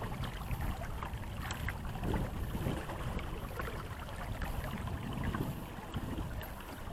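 Water splashing and lapping against the hull of a small sailboat under way, with steady wind rumble on the microphone.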